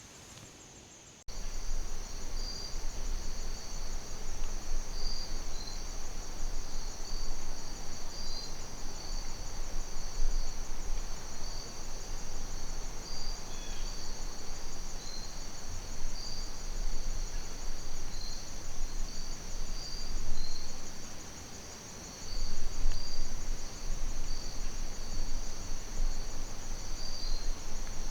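Evening chorus of crickets and other insects: a steady high-pitched trill with a second layer of pulsing chirps over it. Underneath runs a louder, uneven low rumbling noise that comes and goes. The whole sound starts abruptly about a second in.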